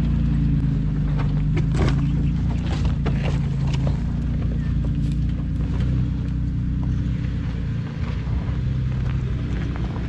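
Off-road SUV engines running at low, steady revs while the vehicles crawl up a rocky trail, with a few sharp clicks and knocks in the first few seconds.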